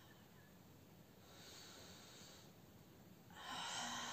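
A woman's slow deep breathing in a yoga breathing exercise: a soft inhale about a second in, then a strong exhale through the mouth starting suddenly near the end.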